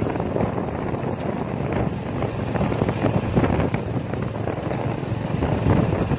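Wind buffeting the microphone over the steady road and engine noise of a moving open-sided vehicle.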